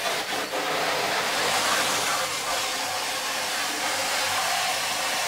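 Kärcher pressure washer spraying a steady jet of water onto a screen-printing screen, a constant hiss of spray on the mesh as it washes out the exposed emulsion. It is run gently, a little stronger than a garden hose.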